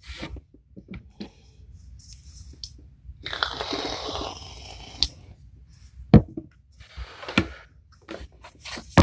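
Tarot cards being handled and shuffled: a stretch of papery rustling, then several sharp snaps and taps as cards are cut and laid down.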